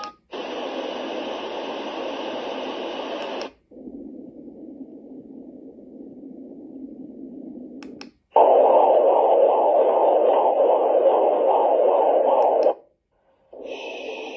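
Tuodi white noise machine playing three of its noise sounds in turn: a bright hiss for about three seconds, then a softer, deeper noise, then a louder, deeper noise with a fluttering pulse. Each stops abruptly, with brief clicks between them as the next sound is selected.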